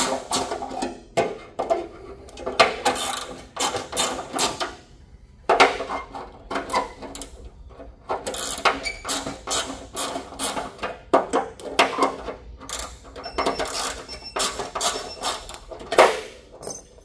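Mini ratchet clicking in quick runs with short pauses as hex-socket fasteners in a plastic side panel are broken loose and turned out.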